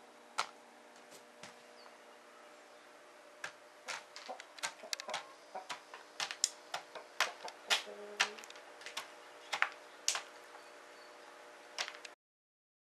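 Hen pecking dry cat kibble from a plastic bowl: rapid, irregular sharp clicks of beak on kibble and bowl. The pecking picks up about three seconds in and cuts off suddenly near the end.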